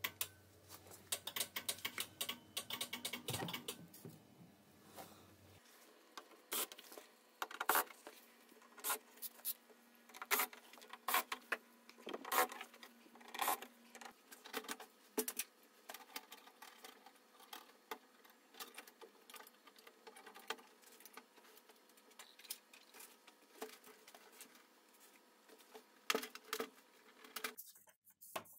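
Irregular clicks, taps and knocks of an LCD TV panel being taken apart by hand: screws in the metal frame backed out with a small electric screwdriver, and plastic frame clips and metal parts prised loose.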